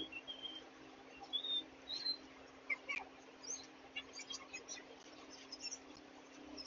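Birds chirping in short, scattered calls, with a faint steady hum underneath.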